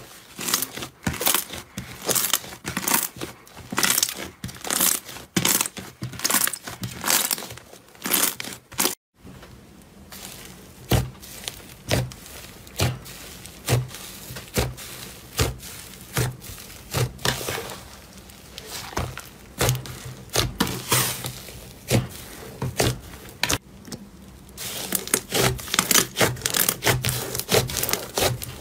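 Hands stretching and kneading slime: a dense, irregular run of sticky crackles and small pops as the slime is pulled apart and folded back. A brief silence about nine seconds in, after which the crackles continue over a faint low hum.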